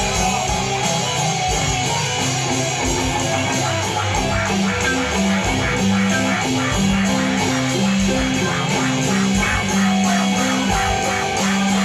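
A live rock band playing: electric and acoustic guitars over a bass line, with a steady strummed rhythm setting in about four seconds in.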